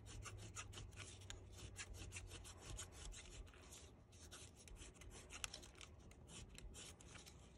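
Faint scratching of a small embossing tool pressed hard and drawn down a paper petal, in many quick repeated strokes, embossing lines into the paper.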